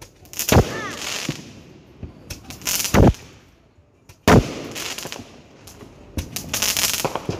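Fireworks going off: a string of sharp bangs with crackling between them, the loudest about four seconds in, and a brief whistle about a second in.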